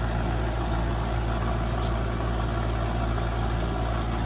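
Air conditioner running with a steady low hum, and one short sharp click a little under two seconds in.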